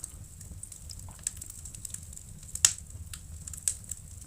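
Wood fire crackling in a fireplace, with logs burning low: irregular sharp pops and snaps over a low steady rumble. The loudest pop comes about two and a half seconds in.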